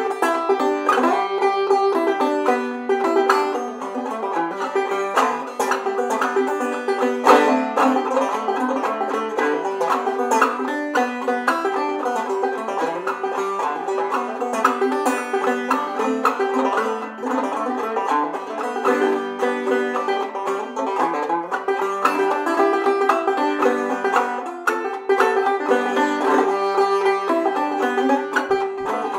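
Solo open-back banjo played clawhammer style: a fast, continuous old-time tune of brushed and plucked notes over a steady ringing drone note.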